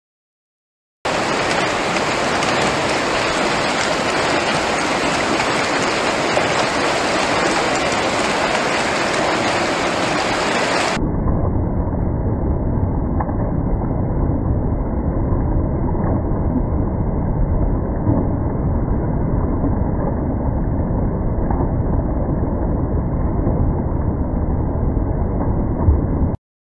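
Water churning and splashing around a turning model paddle wheel, a steady rushing noise. From about ten seconds in it turns deeper and muffled, with nothing left in the upper range.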